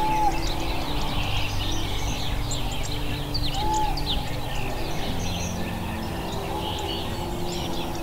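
Many small birds chirping and twittering over soft background music of sustained low notes, with a short clear whistle recurring three times about three seconds apart.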